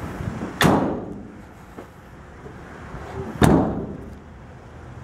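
Rear barn doors of a 2015 Ram ProMaster 2500 cargo van being slammed shut one after the other: two loud slams about three seconds apart, each followed by a brief ringing.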